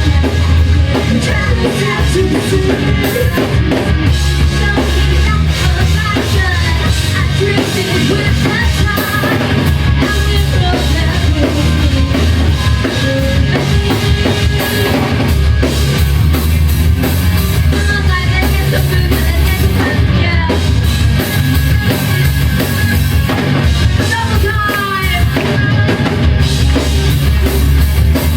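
Live rock band playing loudly, with the drum kit and its bass drum prominent.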